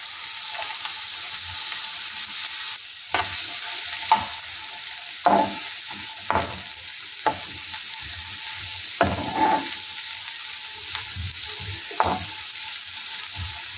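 Chopped onions sizzling in hot oil in a frying pan, frying to brown. A spatula stirs them, knocking and scraping against the pan every second or so.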